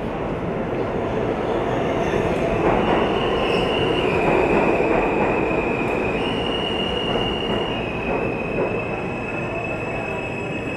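New York City subway train moving along the platform, its steel wheels squealing on the rails in high tones that begin about three seconds in and shift in pitch, over a steady rumble of the cars.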